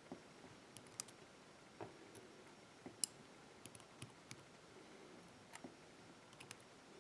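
Scattered small metallic clicks and ticks from handling the parts of a pin-tumbler lock cylinder and its plug as it is put back together. The clicks come irregularly, with the sharpest about a second in and about three seconds in.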